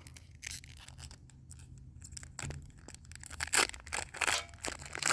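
Foil Pokémon booster pack being torn open and handled: short crinkly rips and rustles, loudest about three and a half to four and a half seconds in.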